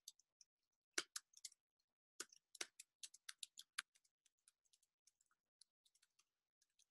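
Faint, quick keystrokes on a computer keyboard as text is typed. The keystrokes start about a second in, come in an irregular run, and thin out near the end.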